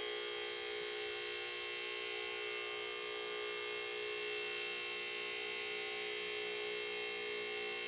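Electric hydraulic power unit of a Max Jax portable two-post lift running, a steady electric-motor hum, as it pumps fluid to raise the lift rams.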